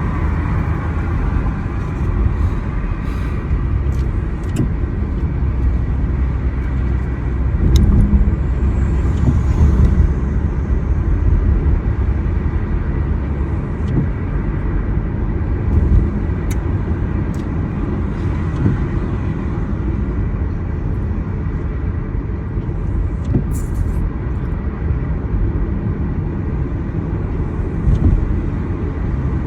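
Steady low rumble of a car on the road, with a few faint sharp clicks scattered through it.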